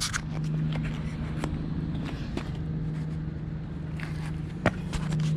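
Scattered clicks and knocks from handling and fitting a window air conditioner's case panels back on, with one sharper knock near the end, over a steady low hum.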